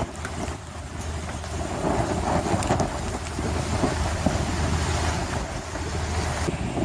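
Strong storm wind buffeting the microphone, over rough sea with waves washing against the quay.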